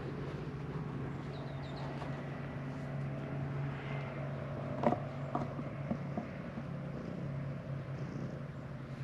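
Calico cat purring steadily, right against the microphone. A sharp knock about five seconds in.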